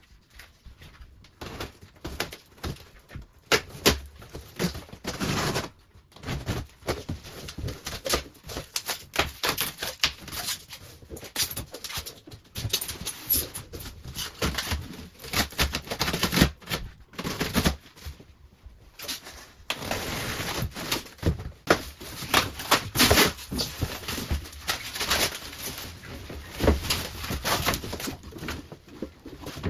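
Dense, irregular clicking and knocking of hand work with tools and parts, with a few longer noisy stretches.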